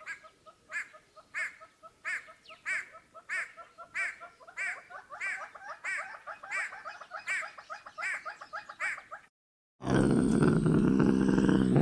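An animal calling in a steady series of short repeated calls, about three every two seconds, each with a quick rise and fall in pitch. After a brief break near the end, a much louder, deeper sound begins.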